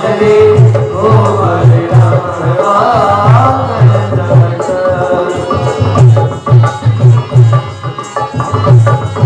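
Live Rajasthani folk music: a hand drum beating a steady, quick rhythm under harmonium, with a voice singing over it for the first few seconds.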